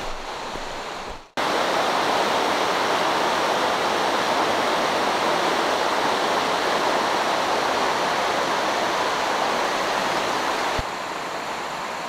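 Mountain stream rushing over rocks through a stretch of rapids, a steady loud rush of water that cuts in suddenly about a second in. Near the end it drops to a quieter, gentler flow.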